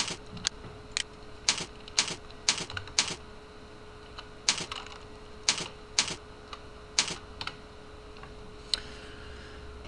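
Computer keyboard keystrokes: single sharp key clicks at an uneven pace, with short pauses between runs, over a faint steady hum.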